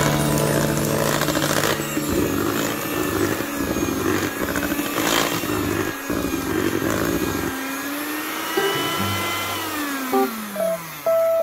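Electric hand mixer running steadily, its beaters churning thick cake batter in a stainless steel bowl, with background music under it. The mixer noise drops away about seven seconds in, leaving the music with falling tones.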